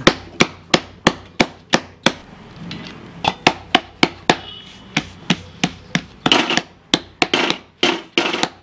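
Rhythmic sharp knocks, about three a second, with a few heavier clustered hits in the second half.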